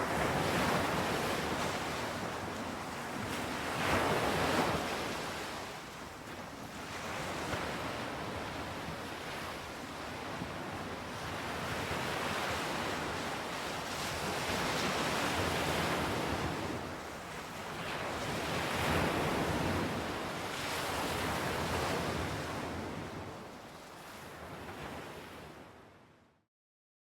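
Ocean surf: waves washing in and drawing back in slow swells every few seconds, fading out and stopping shortly before the end.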